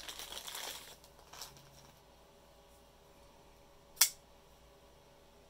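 Clear plastic bag crinkling as a folding knife is unwrapped, then quiet handling. About four seconds in comes a single sharp click as the knife is handled.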